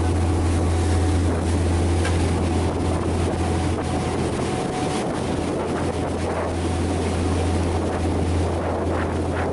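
Charter fishing boat's engine running with a steady low drone, wind buffeting the microphone.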